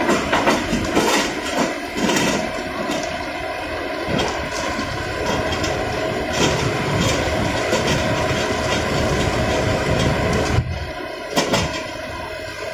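Small rotary piling rig working: its diesel engine and hydraulics run steadily while the kelly bar and auger turn in the hole, with a rough metallic clatter and several sharp clanks, some about ten seconds in.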